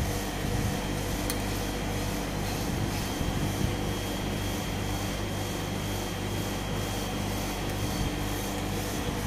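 Steady low machine hum with a faint high whine above it.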